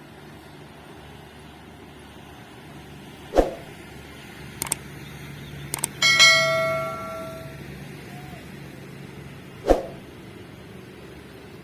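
A single metallic clang that rings out with several overtones and fades over about a second and a half, with sharp knocks a few seconds before and after it, over a low steady rumble.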